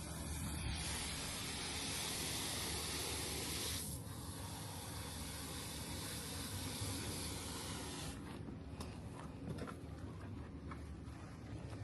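A steady spraying hiss, strongest for the first few seconds, easing about four seconds in and fading further about eight seconds in.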